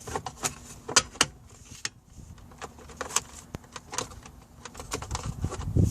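Plastic console trim and the tray holding the new USB port being handled and pressed into place: a run of irregular clicks, taps and rattles, with a louder dull bump near the end.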